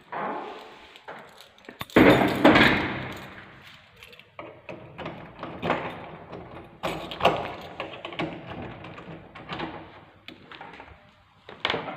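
Door sounds: a door slides with a loud rumble about two seconds in and fades out over the next two seconds, followed by scattered knocks and clicks as a round door knob is handled near the end.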